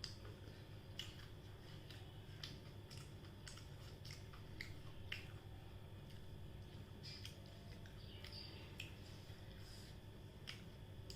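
Near-quiet room with a low steady hum and faint, scattered small clicks and ticks, about a dozen of them spread across the stretch.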